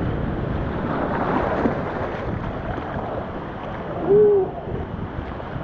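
Whitewater rushing and churning around a plastic whitewater kayak. About four seconds in there is one short hooting call from a person.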